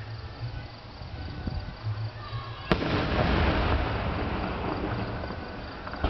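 An aerial firework shell bursts with a single sharp bang about two and a half seconds in, followed by a long fading rumble of echo.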